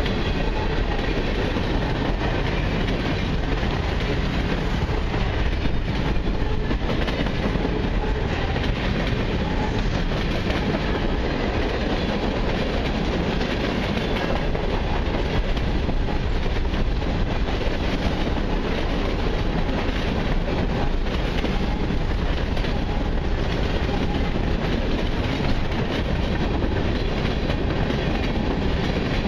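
Freight train cars (covered hoppers and boxcars) rolling steadily past close by: a continuous rumble and clatter of steel wheels on rail.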